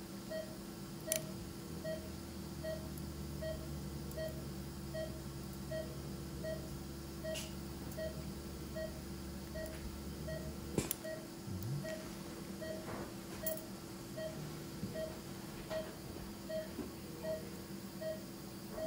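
Operating-room patient monitor beeping with each heartbeat, a single-pitched beep about twice a second, steady throughout. A low hum runs under it and stops about eleven seconds in, and there are a few sharp clicks of surgical instruments.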